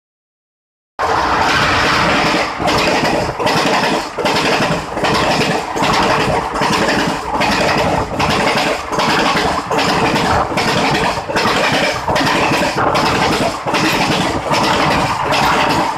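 Indian Railways express passenger coaches running past close by at speed, a loud steady rumble and clatter of wheels on rail that pulses in a regular beat a little faster than once a second. It starts abruptly about a second in.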